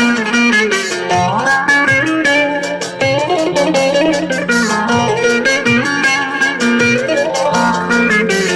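Electric bağlama (saz) playing a quick, ornamented instrumental melody over a steady beat, with no singing.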